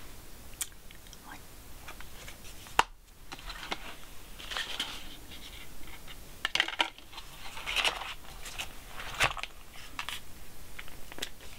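Eyeshadow palette and makeup brush being handled: one sharp click about three seconds in, then a string of short scratchy rubbing sounds.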